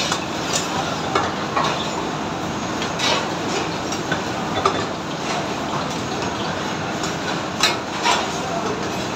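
Steady rushing noise of commercial gas burners and the kitchen extraction hood, with metal ladles scraping and clanking against wide steel cooking pans as curry is stirred. A few sharper clanks stand out, two close together near the end.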